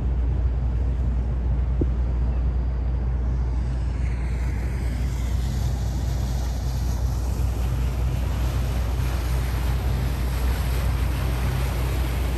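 A cabin cruiser motorboat passing close at speed: the rush of its engine and churning wake grows louder from about four seconds in, over a steady low rumble of wind on the microphone.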